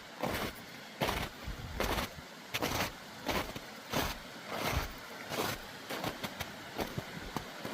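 A hiker's footsteps crunching on snow at a steady walking pace, about three steps every two seconds.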